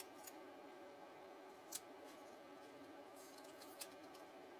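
Near silence over steady room tone, with a few faint sharp clicks of plastic LEGO Technic pieces being handled and fitted together. The clearest click comes a little under two seconds in, with a small cluster just before the end.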